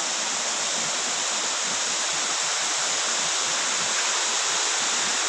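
Steady, unbroken rush of falling water from a mountain waterfall.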